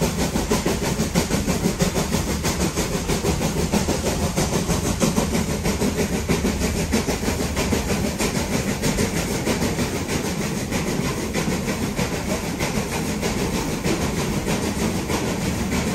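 USATC S160 steam locomotive working a train up a steep gradient: continuous exhaust and running noise with a rapid, regular pulse, mixed with the rumble and clatter of wheels on rail.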